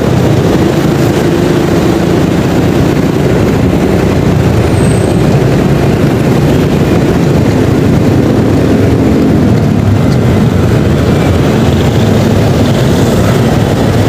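Motorcycle running steadily at riding speed in city traffic: engine and road noise from the bike itself.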